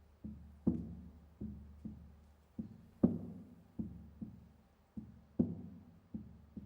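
Music: a low-pitched struck instrument playing a slow, repeating rhythm of about two notes a second, with a stronger stroke every couple of seconds. Each note rings and fades away, and no voices are singing.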